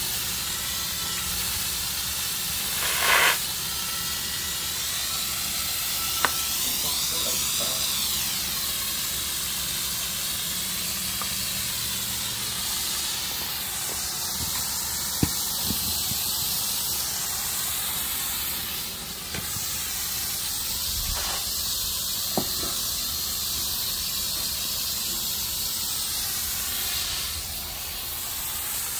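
Garden hose spray nozzle hissing steadily as its water jet hits a scuba tank and the wet concrete, rinsing off paint remover, with a few brief clicks along the way.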